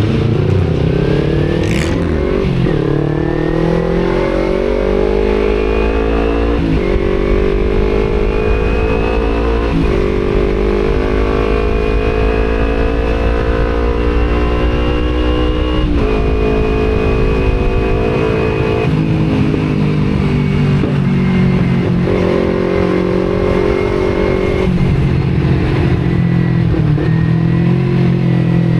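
Kawasaki Z250 motorcycle engine with an Akrapovic aftermarket exhaust, accelerating under way. Its pitch climbs and then drops back sharply about five times as the rider shifts up, then holds steadier near the end, with wind rumble on the action-camera microphone.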